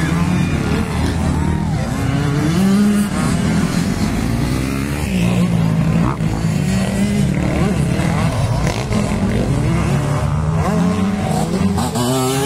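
Motocross dirt bike engines racing around a dirt track, their pitch rising and falling as the riders throttle up and back off.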